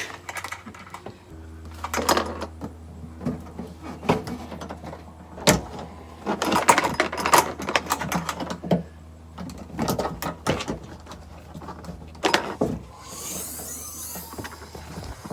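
Irregular metal clicks, knocks and clatter of a carabiner being hooked into and worked against the Subaru's rear hatch latch. A low steady hum starts about a second in and runs until near the end.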